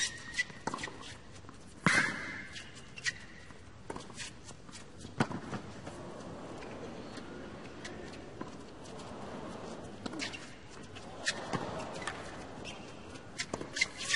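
Tennis ball struck by rackets in a rally on a hard court, with two sharp hits near the start, the louder about two seconds in, each followed by a brief high sneaker squeak. Then come scattered single knocks of the ball being bounced between points, over low arena background noise.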